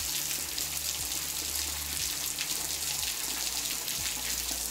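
Steady hiss and spatter of water.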